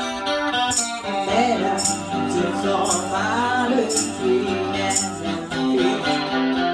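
Small band playing a country-rock song live, with guitars and keyboard. A lead voice comes in singing about a second in, and a tambourine is struck about once a second.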